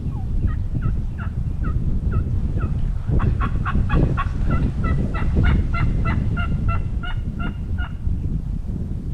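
Turkey yelping: a run of short falling notes, then a faster, steadier series of yelps from about three seconds in until near the end. Heavy wind rumbles on the microphone throughout.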